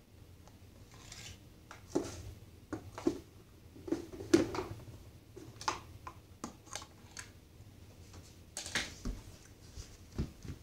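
Irregular light clicks, taps and knocks of small objects being handled, a dozen or more scattered over several seconds, with a slightly louder knock about four seconds in and another near the end.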